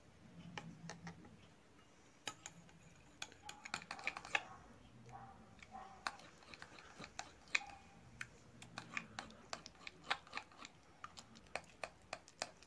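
A metal spoon stirring blue glue and detergent activator in a glass bowl as it thickens into slime, the spoon clicking against the glass in quick, irregular taps.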